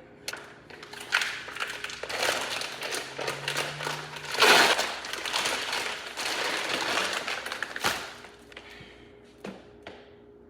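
A rug's packaging being opened by hand, with crinkling, rustling and crackling and one loud burst about halfway through. It stops about eight seconds in.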